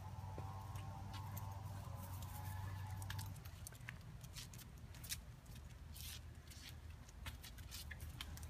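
A dachshund's paws and claws scrabbling and clicking over stones and patio pavers: scattered light ticks. Under them runs a low steady hum that drops away about three seconds in.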